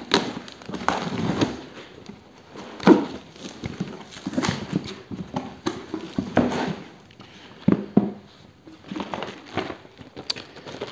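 Cardboard box being opened by hand: flaps pulled back and rustling, with several irregular knocks against the cardboard, the loudest about three seconds in.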